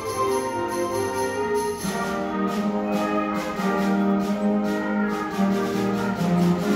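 Middle school concert band playing live, flutes and saxophones with brass. About two seconds in the full band comes in lower and fuller, over a steady beat.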